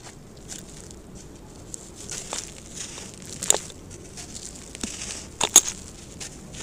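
Dry, cracked sand-cement being handled and crumbled by hand: gritty scraping and crackling, with two sharp cracks about three and a half and five and a half seconds in as pieces break off and crumbs fall.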